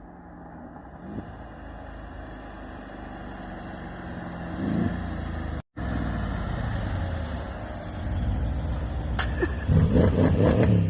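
Mercedes-AMG E63's V8 engine running and revving in short blips, with a brief break near the middle, then accelerating hard and loudest near the end.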